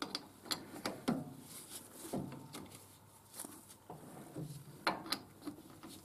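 Irregular metallic clicks and light knocks as a Burnerd collet chuck is turned by hand on a lathe's camlock spindle, with the loudest clicks about a second in and again near the end.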